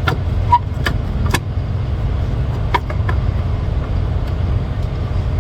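Steady low rumble of the truck idling, with a few sharp clicks and knocks as the clutch switch cable and plastic housing are pushed back into place under the dash.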